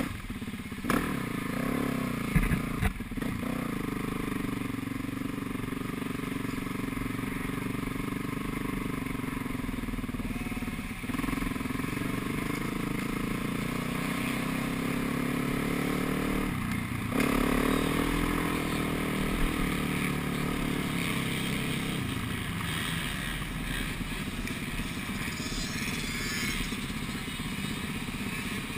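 Kawasaki KX450F four-stroke single-cylinder motocross engine running at low revs as the bike is ridden slowly, heard from a helmet camera. The engine note is steady, with its pitch shifting on small throttle changes and briefly rising partway through.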